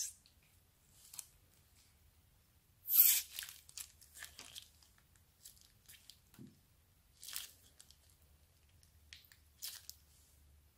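Thin plastic zip-lock bag crinkling in scattered short bursts as slime is squeezed out of it, with soft wet squishing of the slime; the loudest crinkle comes about three seconds in.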